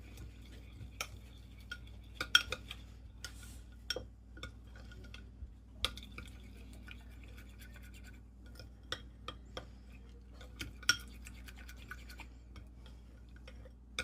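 A spoon stirring baby-bird formula mixed with hot water in a bowl, scraping and clinking irregularly against the sides, a few clinks ringing briefly.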